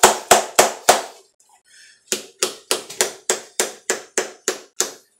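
A plastic snuff can being packed, flicked against the finger so that it taps sharply and evenly about three times a second: four taps, a pause of about a second, then ten more. The tapping settles the long cut tobacco in the can before it is opened.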